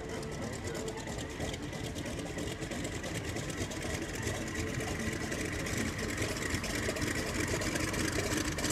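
Vought F4U-4 Corsair's Pratt & Whitney R-2800 Double Wasp radial engine running at low taxi power as the fighter rolls along the ground, a fast steady rumble that grows gradually louder as the aircraft comes closer.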